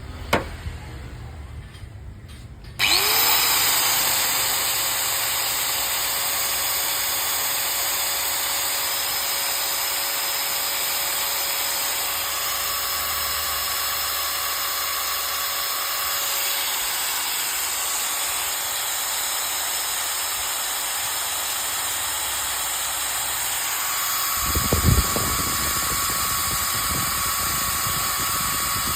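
Makita 9553B 4-inch angle grinder switched on about three seconds in, spinning up quickly to a steady high whine and running on at speed. A click comes just before it starts, and a brief thump sounds near the end.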